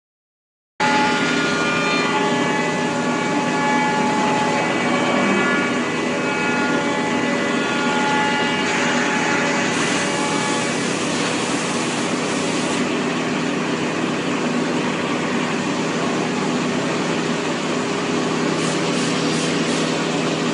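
A CNC machining centre and its robot loading cell running: a steady mechanical din with several steady whining tones, starting suddenly just under a second in. A stronger high hiss runs for about three seconds in the middle.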